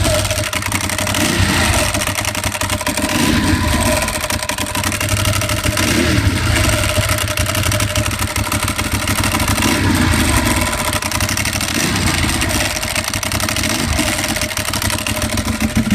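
2011 Ducati 1198's L-twin engine running and blipped lightly again and again, swelling every couple of seconds. The owner says a whirring comes in with each bit of throttle in any gear, and suspects failing bearings or timing belt pulleys, or possibly the clutch.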